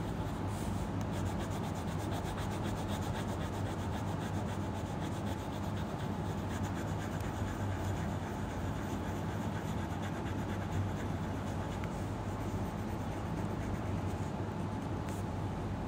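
Coloured pencil rubbing quickly back and forth on paper as a drawing is shaded in: a fast, steady scratching over a low background hum.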